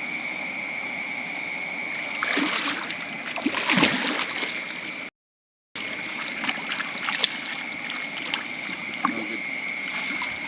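Water splashing and sloshing, loudest between about two and four seconds in, over a steady high-pitched tone and a rapid ticking pulse. The sound cuts out briefly in the middle.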